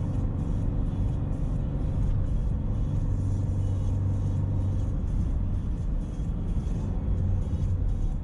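Toyota 86's FA20 2.0-litre flat-four engine running steadily under light load uphill, heard from inside the cabin as a continuous low drone with road noise.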